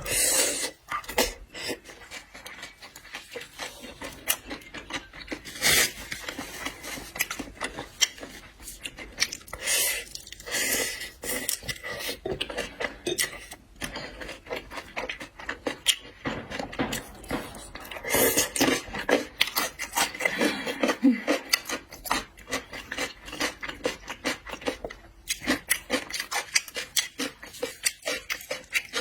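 Close clatter of seafood shells and utensils on dishes: many short clicks, taps and scrapes with rubbing, typical of shells being handled and cracked during eating.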